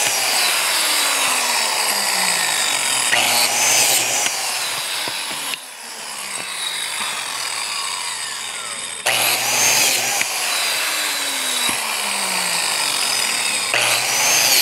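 Porter-Cable biscuit joiner running, its spinning blade cutting biscuit slots into a wooden board. The sound drops for a few seconds in the middle, then comes back up about nine seconds in.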